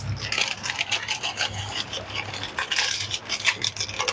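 Plastic Oreo biscuit wrapper crinkling as crushed biscuits are shaken out of it, a dense run of dry crackles and rustles.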